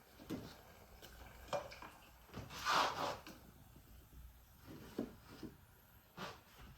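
Kitchen handling sounds during food preparation: a few soft knocks and taps, and a short scraping rustle about two and a half seconds in.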